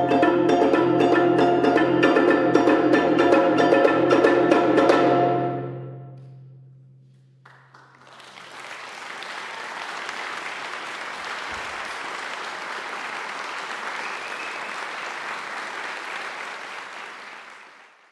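Marimbas played by several mallet players in a steady pulse of repeated strokes, the music ending about five seconds in and ringing away. About two seconds later audience applause starts and runs on evenly, fading out near the end.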